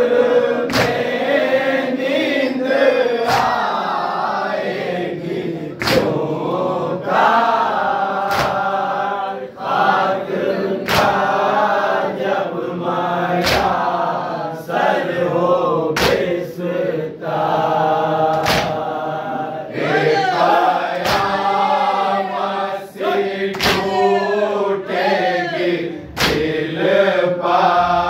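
A group of men chanting a noha, an Urdu mourning lament, in unison, the line rising and falling. Sharp slaps of matam chest-beating keep time with it, about one every two and a half seconds.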